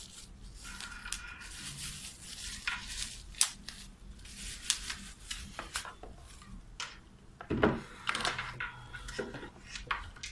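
Plastic bubble wrap rustling and crinkling as it is pulled off a boxed desktop speaker, with many sharp clicks and light knocks from the speaker and cardboard box being handled, one duller thump a little past halfway.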